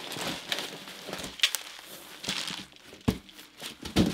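Bubble wrap crinkling as a bubble-wrapped hardcover book is lifted out of a cardboard shipping box, with two sharp knocks near the end.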